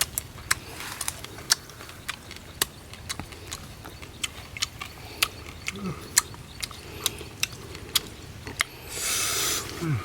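Sharp, irregular clicks and crackles of raw crab shell being bitten and chewed, with a brief louder rush of noise near the end.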